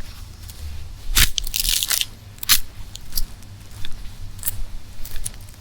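Footsteps crunching through dry leaves and twigs on a forest floor, a crunching step about every second with crackling between, over a steady low rumble.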